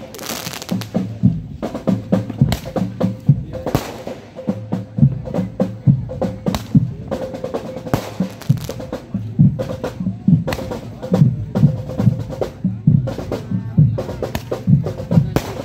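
Marching drum band playing snare drum rolls over steady bass drum beats.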